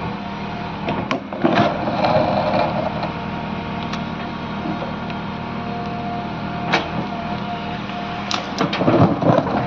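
JCB backhoe loader's diesel engine running steadily while the boom digs and moves soil, with sharp knocks here and there and a cluster of them near the end.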